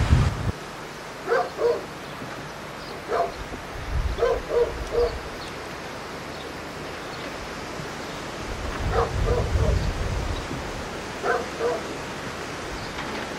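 A dog barking in short runs of two or three barks, a few seconds apart, over a steady rushing background, with gusts of wind on the microphone.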